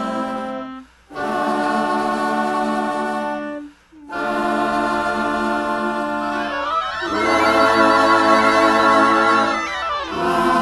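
Choral music: voices holding long chords that break off briefly about a second in and again near four seconds, then swell louder from about seven seconds in.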